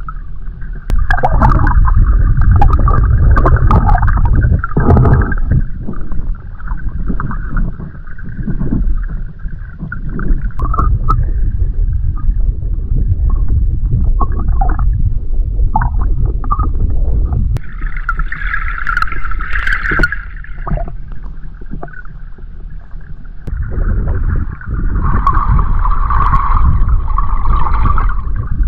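Muffled underwater noise from a camera submerged in its waterproof housing: a steady low rumble of moving water with gurgling swells. There are scattered sharp clicks in the first few seconds and brighter, louder swells about two-thirds of the way through and again near the end.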